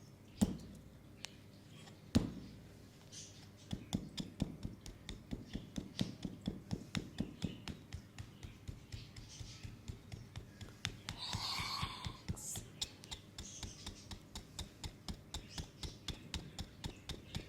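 Two sharp cracks in the first couple of seconds, then hands tapping on an oiled leg in quick rhythmic massage strokes, about four taps a second. A brief breathy hiss cuts in around the middle.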